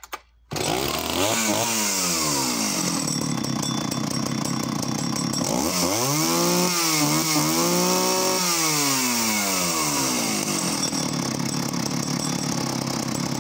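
A vintage Danarm 71SS two-stroke chainsaw, set on its throttle lock, catches on a starter-cord pull about half a second in. It settles into a fast idle. It is revved up and held for a couple of seconds in the middle, then drops back to a steady fast idle.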